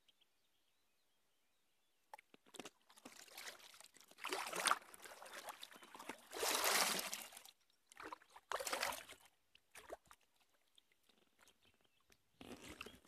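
Kayak paddle strokes in river water: the blade dipping and pulling, with splashing and water running off it, starting about two seconds in and repeating roughly every one to two seconds.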